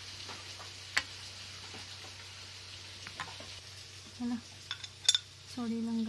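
Spatula stirring a thin liquid in a stainless steel saucepan, with faint scrapes and taps. There is a sharp metal clink about a second in, and a louder cluster of clinks about five seconds in.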